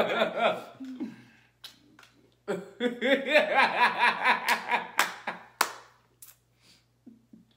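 A man laughing hard in rhythmic bursts, with a couple of sharp hand claps about five seconds in.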